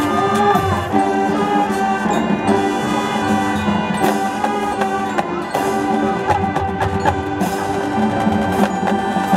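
High school marching band playing its field show: held brass chords over drumline and front-ensemble mallet percussion such as marimba and chimes, with sharp percussion strikes throughout.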